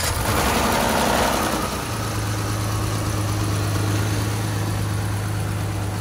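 Dodge Charger's 3.6 Pentastar V6 running with the hood open, busier for the first two seconds and then settling into a steady idle. It runs without a lifter tick, though the engine is worn out: it once ticked from failed lifters that were never replaced, it goes into limp mode from low oil pressure, and it has a slight shudder.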